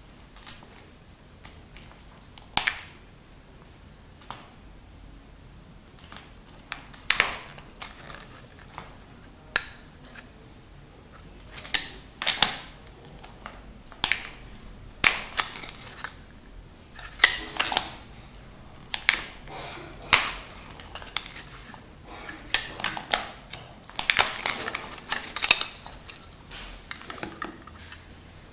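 Sharp clicks and snaps of an iPhone 5 case being prised and flexed off the phone by hand, coming at irregular spacing with a quick cluster of them near the end.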